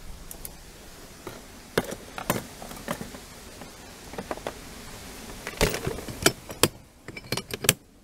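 Metal hand tools and a spoon being packed into a hard plastic tool case: a string of sharp clicks, knocks and clatters, busiest in the second half.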